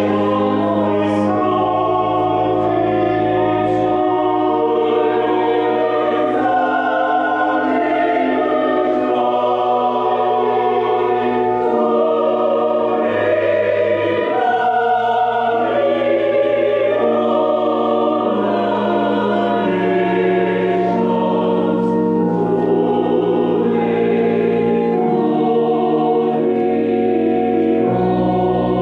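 Church choir singing a slow piece in long held chords, with a sustained low bass line that moves every second or two.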